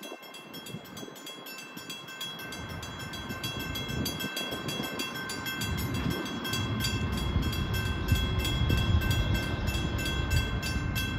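Train approaching: a low rumble builds steadily louder, under several steady high ringing tones and a fast, even ticking.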